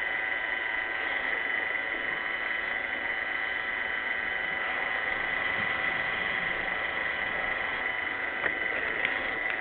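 An iRobot Roomba 600-series robot vacuum running: a steady hum of its motors and brushes with a high whine, and two short knocks near the end.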